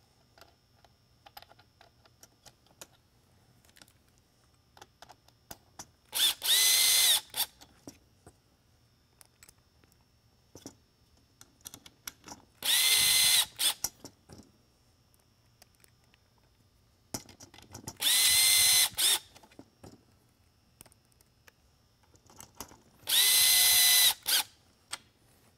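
Cordless drill/driver driving four mounting screws into a plastic beacon base: four short runs of steady motor whine, each about a second long and a few seconds apart. Light clicks of screws and parts being handled come in between.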